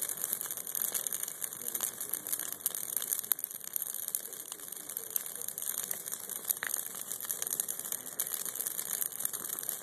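Dry Christmas tree branches burning in a bonfire, crackling and popping continuously in a dense run of small irregular snaps over the hiss of the flames.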